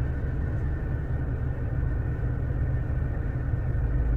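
Steady low rumble of background noise with a faint steady hum, with no distinct events.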